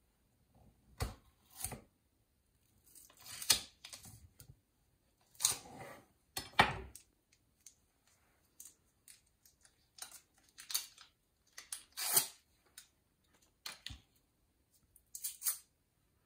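Scattered taps and clicks of a kitchen knife on a wooden cutting board as a stick of butter is cut into tablespoons, with the butter and a ceramic bowl being handled. About ten separate knocks come at irregular intervals.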